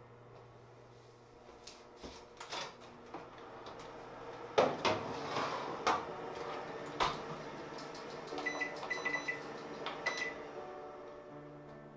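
Knocks and clicks of things being handled in a kitchen, with a run of short high beeps about two-thirds through over a faint steady hum.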